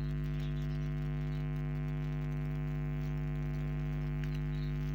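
Steady electrical mains hum, an unchanging low buzz with many overtones, with a couple of faint ticks as wires are handled against plastic switch blocks.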